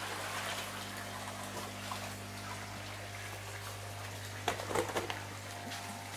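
Water splashing and running in an indoor koi holding basin as a koi is lifted out in a net, with water pouring in from an inlet pipe, over a steady low hum. A couple of brief knocks about four and a half seconds in.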